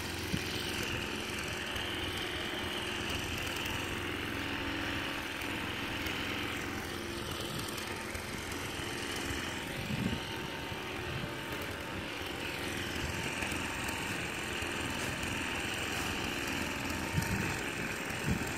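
Strong blizzard wind of around thirty miles an hour blowing steadily and buffeting the microphone, with a couple of brief louder gusts.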